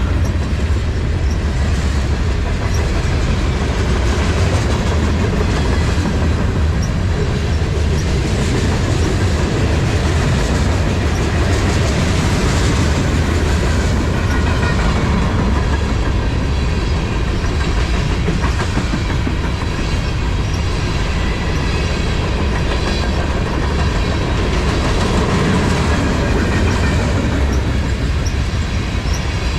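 Freight train's cars rolling past in a steady, unbroken run, a low rumble with wheels clacking over the rail joints.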